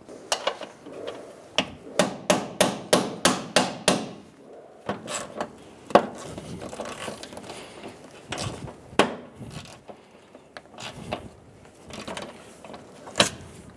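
A hammer tapping a rounded-bolt extractor socket down onto the head of a seized screw, about nine quick strikes in two seconds. Scattered clicks and knocks follow as a ratchet on the socket works the screw loose.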